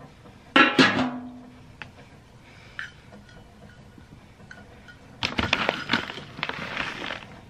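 A metal canister's lid clanks once and rings briefly. About five seconds in comes a two-second rattle of dry rabbit pellets being scooped into a bowl.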